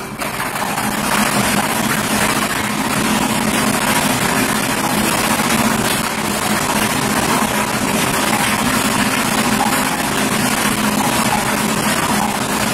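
Air-mix lottery ball machine running: a steady rushing blower noise with a low hum as the balls are blown around inside the clear plastic drum.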